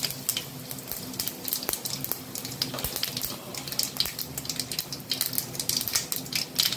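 Tempering of mustard seeds, cumin and dried red chillies sizzling in a little hot oil in a kadai over a low flame, with many small sharp crackles and pops.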